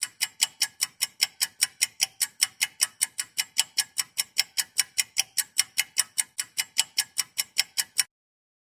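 Clock-ticking sound effect: fast, even ticks, about five a second, that stop abruptly near the end.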